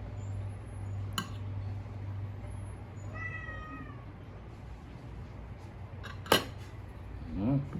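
A cat meows once, a drawn-out call about three seconds in, with a shorter call near the end. Two sharp clicks sound, the louder one just after six seconds, over a steady low hum.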